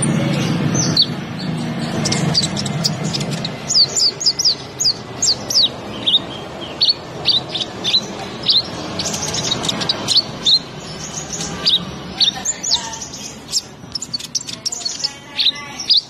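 Male purple-throated sunbird ('kolibri ninja') singing in a cage: a fast run of short, sharp, high chirps, mostly falling in pitch, several a second. The run starts a few seconds in and goes on in bursts. A low hum sits under the opening seconds.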